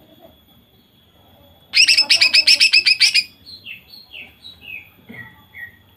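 Female greater green leafbird (cucak ijo) singing. It gives a loud burst of rapid-fire notes, about nine a second, lasting a second and a half: the 'nembak' (shooting) style keepers prize. Then it gives a string of about six short downward-sliding whistles, each a little lower than the last.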